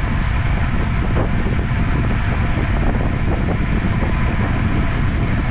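Steady, loud wind rush on the microphone of a camera mounted on a road bicycle riding along a paved road, with rumble from the road surface.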